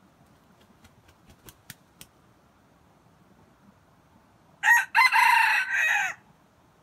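Junglefowl rooster crowing once, about two-thirds of the way in: a short clipped opening note, then a longer call that drops in pitch and cuts off, about a second and a half in all. A few faint sharp ticks come before it.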